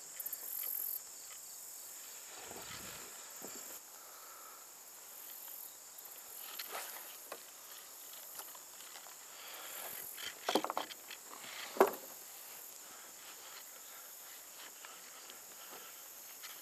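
Faint steady high-pitched insect drone from the pond surroundings, with a few sharp clicks about ten and twelve seconds in, the loudest near twelve seconds.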